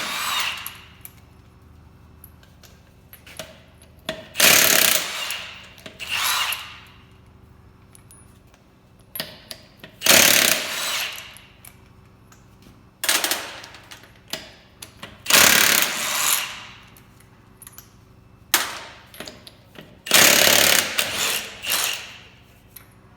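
Impact wrench run in short bursts of about a second each, roughly eight times.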